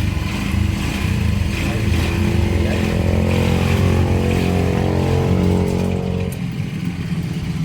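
An engine running steadily, with a pitched hum that drops away about six seconds in.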